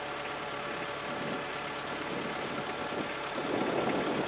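An engine idling steadily, a little louder and rougher near the end.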